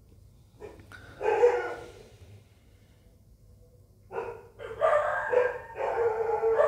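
A dog barking: a short bark a little over a second in, then a run of four barks from about four seconds in.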